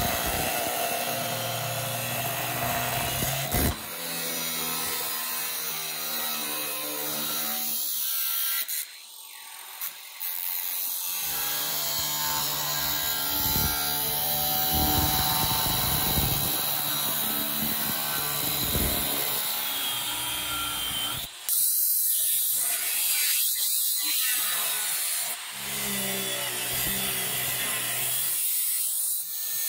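Workshop power tools running with a steady motor hum and the rubbing, sawing sound of material being worked. The sound changes abruptly several times, as short clips of different tool work follow one another.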